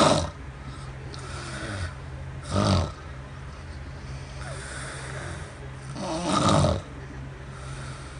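Man snoring in his sleep: three loud snores a few seconds apart, over a steady low hum.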